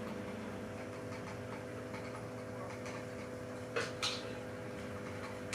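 A steady low hum throughout, with two quick sharp clicks about a quarter of a second apart a little before the end, from working a silicone sealant gun while laying a bead along the tank's seams.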